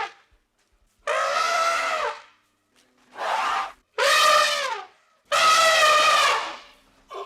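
Elephant trumpeting: four loud calls of about a second each, separated by short silences, several sliding down in pitch as they end.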